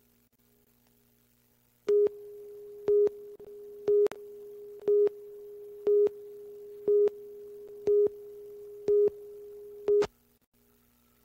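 Broadcast leader tone on a programme slate: a steady electronic tone with a louder beep on the same pitch once a second, nine beeps in all, starting about two seconds in and cutting off suddenly about ten seconds in.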